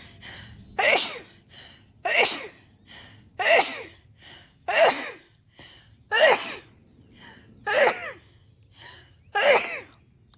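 A woman sneezing in a rapid fit: about seven sharp sneezes, one every second and a half or so. Each is preceded by a short, gasping in-breath.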